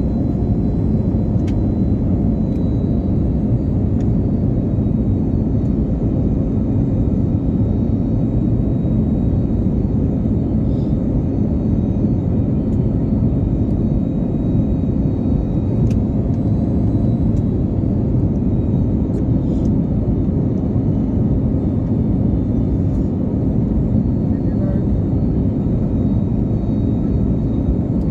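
Airliner on landing approach: a steady, even rumble of its engines and rushing air, unchanging throughout.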